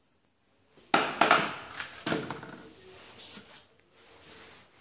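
Handling noise: a quick run of knocks and clatter about a second in and again around two seconds, fading into rustling.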